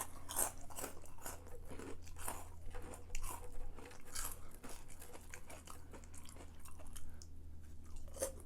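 A person chewing and biting crunchy food close to the microphone, a run of irregular crunches with no speech.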